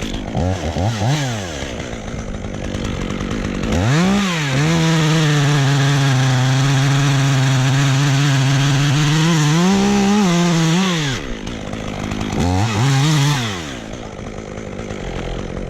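Chainsaw blipped twice, then held at full throttle for about seven seconds while cutting through a limb, then revved once more and dropped back to idle.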